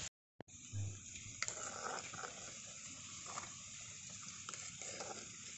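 Faint steady hiss with scattered light clicks: vermicelli simmering in liquid in a miniature clay pot over a small wood fire while a steel spoon stirs and lifts the strands.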